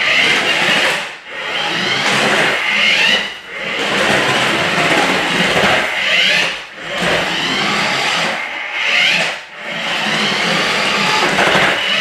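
Remote-control Nissan GT-R toy car's small electric motor and gears whirring as it drives over a hardwood floor, the whine rising and falling with the throttle and dropping off briefly about four times.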